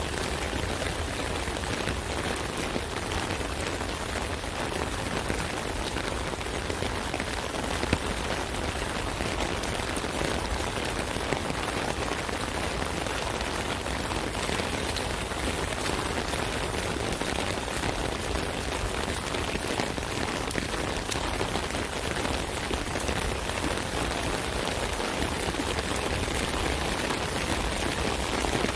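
Steady rain drumming on an umbrella's canopy, a dense patter of many small drop hits with now and then a single louder drop.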